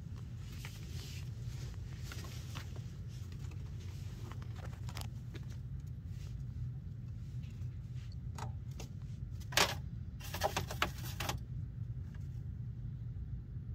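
Chinchilla hopping into a metal dust-bath pan: a brief sharp clatter about ten seconds in, then about a second of scratchy rattling. A steady low hum runs underneath.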